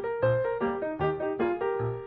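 Background piano music: a run of short notes, several a second, over a repeating bass line.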